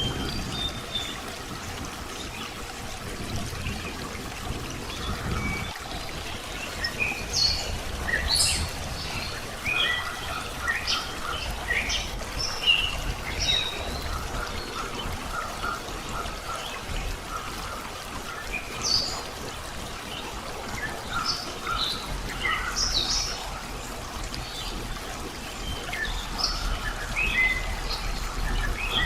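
Several birds chirping and calling in short, scattered notes, over a steady rush of running water.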